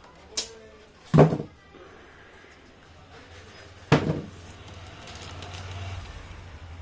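Cardboard packaging of a tower speaker being opened and handled: three sharp knocks, the loudest about a second in and another about four seconds in, with a faint low hum in the second half.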